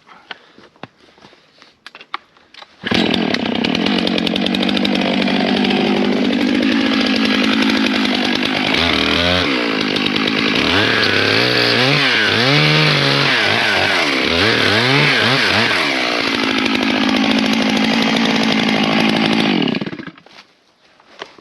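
Stihl 661 two-stroke chainsaw running at high revs and cutting wood, cleaning up the face-cut wedge in a tree trunk. In the middle the engine pitch dips and recovers several times as the chain bites. It starts abruptly about three seconds in and stops about a second before the end.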